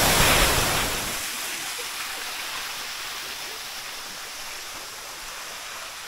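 Close-up rush of the Tukad Cepung waterfall for about the first second. Then the sound drops abruptly to a softer, steady hiss of running water.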